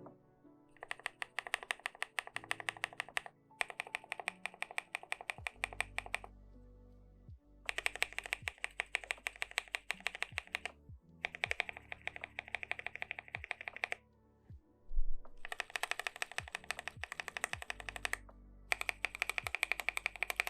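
Mechanical keyboard fitted with BSUN Flower Shadow switches, which have LY-material housings, being typed on fast. It comes in six bursts of rapid key clacks, each a few seconds long with short pauses between them, over soft background music.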